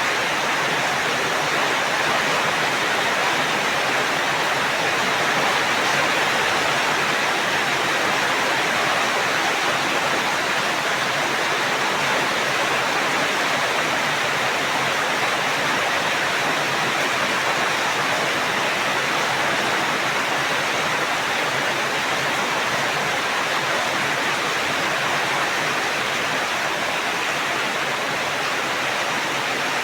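Steady heavy rain: a dense, even hiss with no separate drops or thunder standing out.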